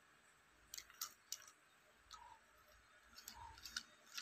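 Faint clicks and light metallic ticks from a chrome LVLP spray gun as its parts are handled and turned in gloved hands, in small clusters about a second in and again after three seconds.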